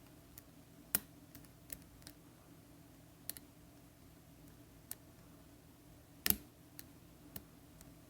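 Irregular light clicks and taps of a lock pick working the wafers of an Illinois DUO triple-bitted wafer padlock, about ten in all, with two sharper clicks about a second in and just after six seconds.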